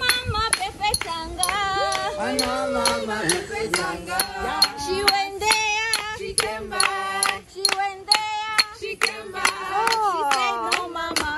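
Several voices singing a song together, with steady hand-clapping kept in time.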